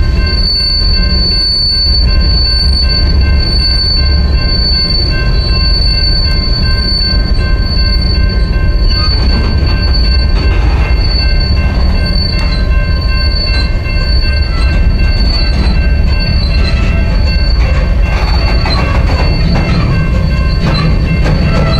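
Freight train cars rolling past with a heavy rumble and a steady high-pitched wheel squeal. About halfway through the squeal weakens and rattling clicks from the wheels and cars come forward.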